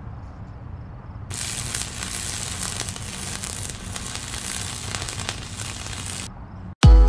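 A dense crackling, sizzling sound effect over a low rumble, starting about a second in and cutting off sharply about a second before the end. Just before the end, electronic dance music with a heavy thumping beat begins.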